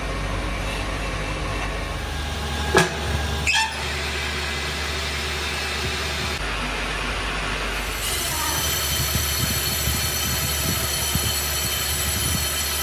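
Metal lathe in a machine shop: two sharp clanks about three seconds in as the three-jaw chuck is tightened on a brake disc with its key. From about eight seconds the lathe runs, a steady hum with a high whine, spinning the disc.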